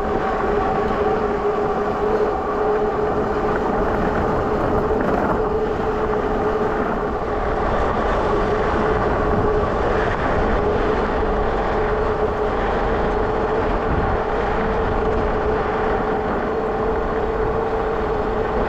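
Electric bike's motor whining at a steady pitch under power while riding at speed, over a steady rush of wind and tyre noise.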